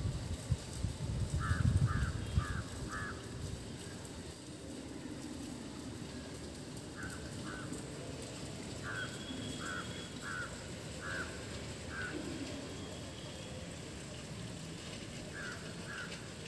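Crow cawing in short runs: four quick caws in the first few seconds, then scattered caws in pairs and runs through the rest. A low rumble of wind on the microphone at the start.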